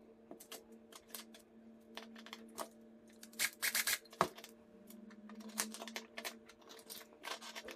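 Small clicks and rattles of hard 3D-printed plastic parts and screws being handled on a workbench, with a cordless drill-driver briefly driving a small screw into a printed plastic part a little past three seconds in, followed by a sharp click. A steady low hum runs underneath.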